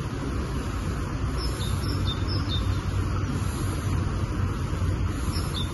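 Outdoor pondside ambience: a steady low rumble with a small bird chirping quick series of short high notes, about one and a half seconds in and again near the end.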